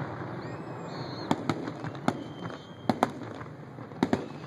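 Fireworks going off during a finale: a string of sharp bangs and pops, several in quick pairs, over steady background noise.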